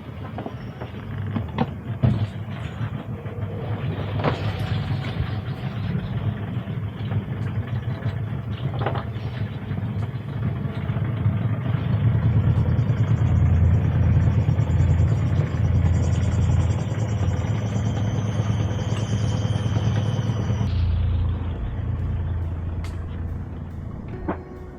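A sailing yacht's inboard diesel engine running under load while manoeuvring, getting louder towards the middle and easing off about 21 seconds in. A few sharp knocks about 2, 4 and 9 seconds in.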